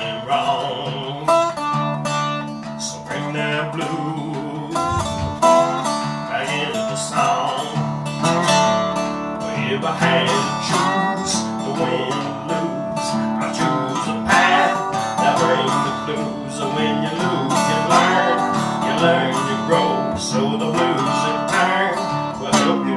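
Lap-style slide resonator guitar playing a blues instrumental passage, plucked notes gliding in pitch under the slide.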